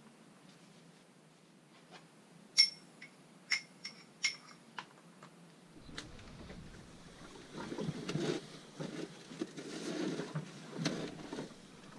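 A metal spoon clinking against a small glass jar, about half a dozen short ringing clinks between roughly 2.5 and 5 seconds in, the first the loudest. After about six seconds come low rumbling handling noise and dull knocks.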